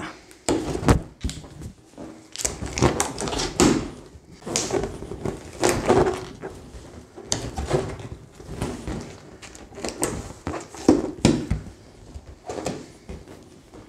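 Inflated 12-inch latex link balloons rubbing against each other and against the hands as they are handled and their tips tied together, in irregular short strokes.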